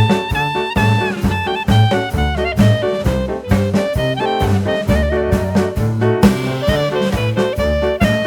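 Upbeat jazz background music with brass and saxophone over a steady bass and drum beat.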